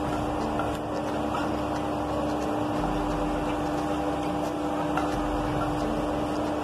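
Mustard seeds sizzling in hot oil in a nonstick pan as they are stirred with a wooden spatula, with a few faint, scattered pops as the seeds just begin to crackle. A steady hum runs underneath.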